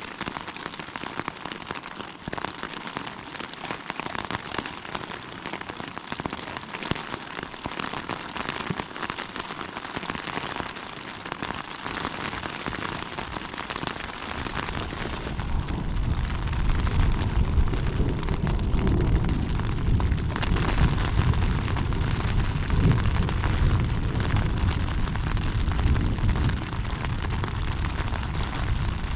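Heavy rain falling on a nylon tent fly, heard from inside the tent. About halfway through, a long low rumble of thunder rolls in and keeps going.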